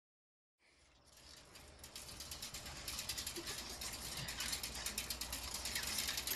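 Dense, rapid high-pitched clicking that fades in from silence and grows steadily louder, over a faint low rumble.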